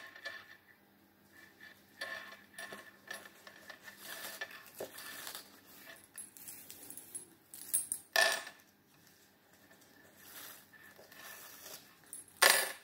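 Dry penne pasta tubes clicking against each other, the cardboard and the tabletop as they are handled and threaded onto a string, with soft rustling of string and paper. Two louder knocks, about eight seconds in and near the end.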